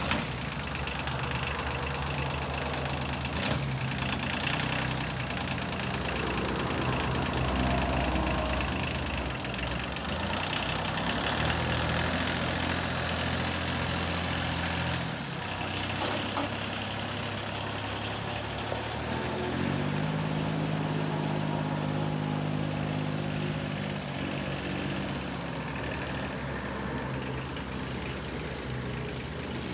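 Kubota L2050 compact tractor's diesel engine running as the tractor is driven, its pitch stepping up and down several times with the throttle. There is a single sharp click about three and a half seconds in.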